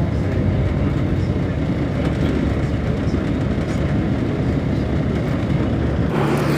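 Airport apron bus running, heard from inside the cabin: a steady engine and road rumble. About six seconds in it changes to a steadier low hum.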